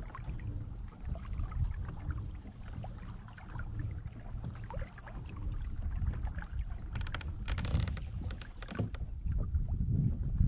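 Old Town Sportsman fishing kayak underway across calm water: a steady low rumble of water moving along the hull, with a cluster of small clicks about seven seconds in and a sharper knock at the very end.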